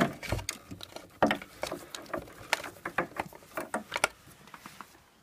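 Hands handling a wooden keyboard-stand leg and its metal bracket, giving an irregular run of clicks, taps and light knocks that dies away near the end.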